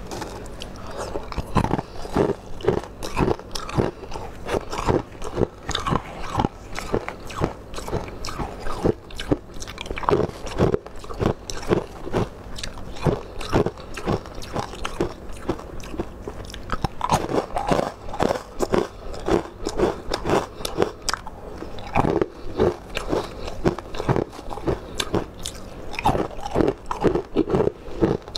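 Close-miked eating: many crisp crunching bites and chewing, coming in quick clusters.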